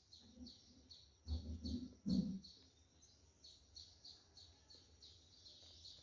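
A small bird chirping over and over in the background, about three to four short chirps a second. A few faint low voice-like murmurs come between about one and two and a half seconds in.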